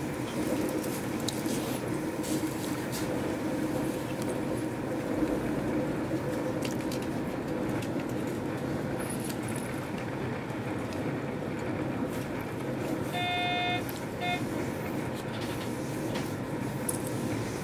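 Regional Express train running along the line, heard from inside the carriage: a steady rumble of wheels and running gear with scattered clicks. About 13 seconds in, a horn sounds, one blast of under a second, then a short second toot.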